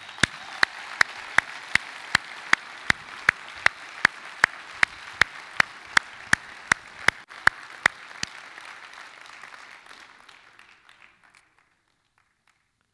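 Congregation applauding, with one person's much louder, close-up claps at a steady two and a half a second over it for about eight seconds. The applause then dies away to silence near the end.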